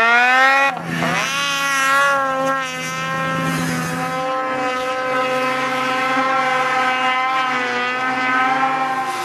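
Snowmobile engine at high revs, its pitch wavering up and down. A little under a second in, it drops sharply and climbs back, then holds fairly steady at high revs.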